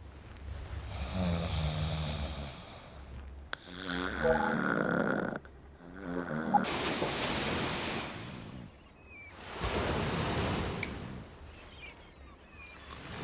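A person snoring: about four loud, rattling snore breaths a few seconds apart, each swelling and fading.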